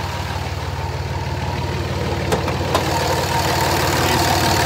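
A 2004.5 Dodge Ram's 5.9-litre Cummins inline-six turbo diesel idling steadily, growing louder toward the end. Two short clicks sound about half a second apart a little past halfway.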